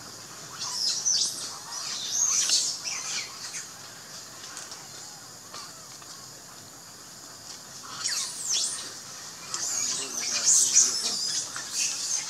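High-pitched animal chirps and squeals in quick sweeping notes, in two bouts: one in the first few seconds and a louder one from about eight seconds in.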